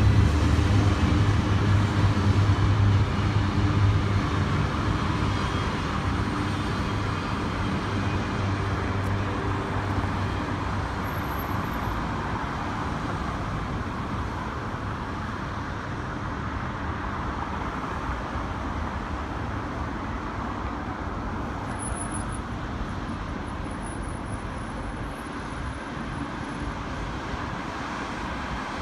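Double-stack container train rumbling past and fading as it pulls away over the first ten seconds, leaving steady freeway traffic noise.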